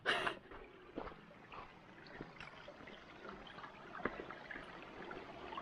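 A small mountain meltwater stream trickling faintly over stones, with a few clicks of hiking boots stepping on rocks.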